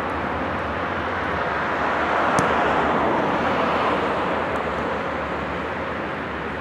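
Steady outdoor rushing noise that swells for a second or two in the middle, with a single sharp knock about two and a half seconds in.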